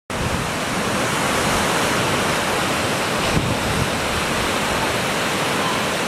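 Small sea waves breaking in the shallows and washing up the beach: a steady, rushing hiss of surf.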